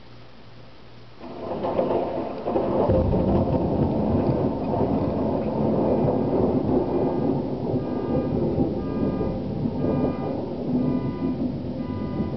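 Thunder from a close cloud-to-ground lightning strike. It breaks in about a second after the flash, swells into a deep heavy crash a couple of seconds in, then rolls on loud and rumbling.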